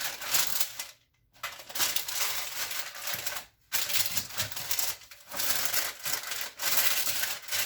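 Sheet of parchment paper rustling and crinkling as it is pressed into a baking pan, in several spells broken by brief pauses.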